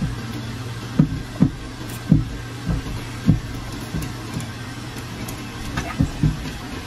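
Water sloshing and knocking in a turtle aquarium as turtles thrash at the surface: irregular dull, low thumps, some in quick pairs, over a steady low hum.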